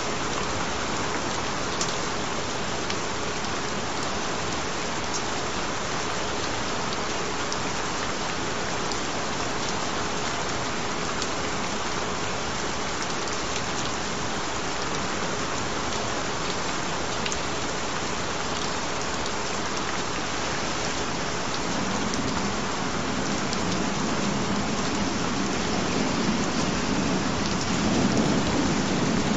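Steady rain falling, with a low rumble of thunder building about three quarters of the way in and peaking near the end. A faint steady tone runs underneath.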